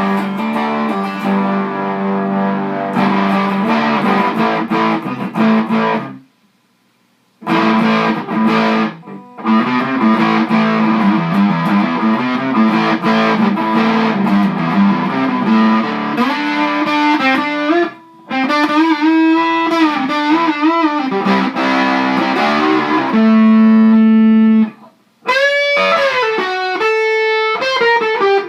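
Les Paul-style electric guitar played through a modded Fender Champ 600 tube amp into a Celestion G12H 12-inch speaker, with a fuzz pedal on, the neck pickup and the guitar volume rolled back for a lightly distorted tone. It plays strummed chords, stops briefly about six seconds in, then plays lead lines with wavering string bends and vibrato, a long held note, a short gap, and more bent notes near the end.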